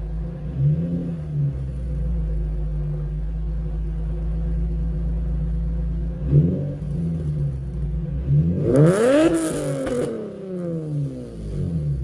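Infiniti G35 coupe's 3.5-litre V6 running through ISR resonated test pipes and an HKS exhaust: a steady cruising drone, a short rise in revs about halfway through, then a hard rev that climbs for about a second with a raspy exhaust note before the revs fall back off throttle.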